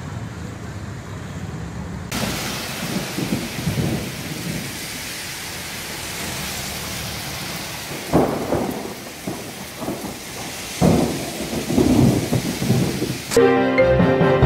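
Heavy rain pouring in a thunderstorm, a dense steady hiss that sets in abruptly about two seconds in after a quieter low rush. Deep rumbles of thunder break through about eight seconds in and again twice a few seconds later. Music starts in the last second.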